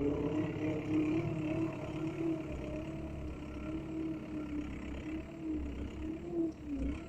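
Small machine's motor running with a steady whine whose pitch wavers slightly up and down, over a low rumble.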